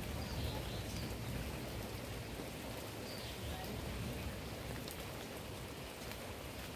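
Steady rain falling on leaves, with a few single drops standing out.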